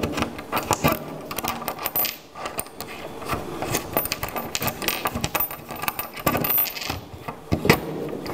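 Steel bolt and washer clinking and tapping on a wooden desktop as they are handled and fitted into a drilled hole: a scattered run of light, sharp metallic clicks.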